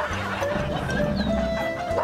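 Background music with held melody notes over a pulsing bass line.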